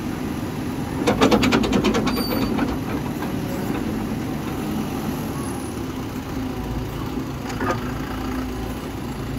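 Bobcat B900 backhoe loader's diesel engine running steadily. About a second in comes a rapid run of clattering knocks lasting a second or so, and there is one more knock near the end.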